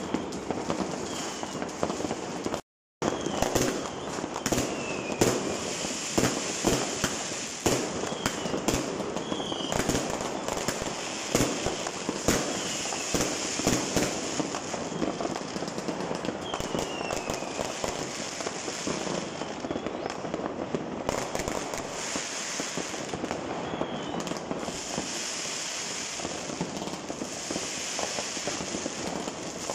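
Many fireworks going off at once: a continuous crackle of bangs and pops, denser in the first half, with a few short whistles now and then. The sound cuts out completely for a moment about three seconds in.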